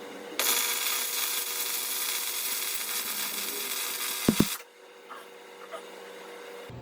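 Welding arc on a steel frame, a steady crackling hiss that starts about half a second in and runs for about four seconds. Two sharp clicks come just before it cuts off.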